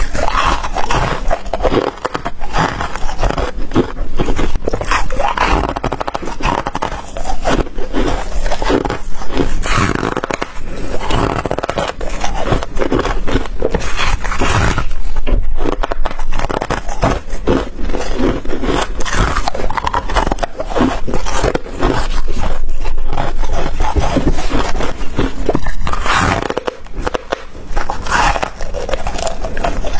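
Chunks of white ice being bitten and crunched between the teeth, close to the microphone, in a steady run of crisp bites and scraping crunches.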